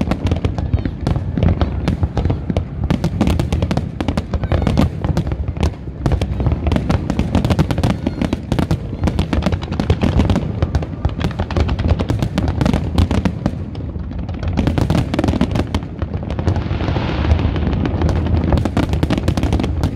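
Large fireworks display: a dense, continuous barrage of shell bursts, many bangs close together over a low rumble. About three-quarters of the way through, a steady hiss joins the bangs.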